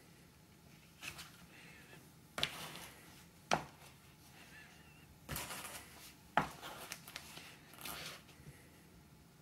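Paperback books handled on a tabletop: several short bursts of paper rustling as pages and covers are turned and closed, with two sharp taps as a book is set down.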